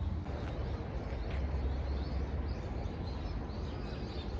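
Outdoor background noise: a steady low rumble with birds chirping faintly, and a few light clicks in the first second and a half.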